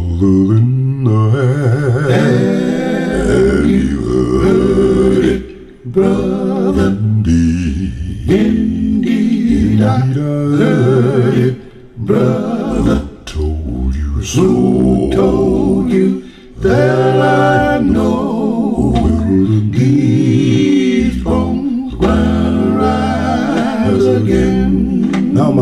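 Vocal music played back over large floor-standing hi-fi loudspeakers: singing in phrases with short pauses between them, over a deep bass line.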